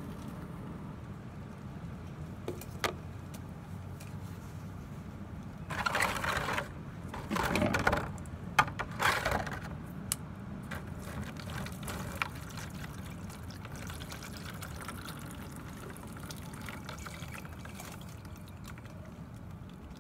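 Watery clay slurry poured from a glass jar through a wire-mesh kitchen strainer into a plastic bowl, in a few pours between about six and ten seconds in, over a steady low background noise.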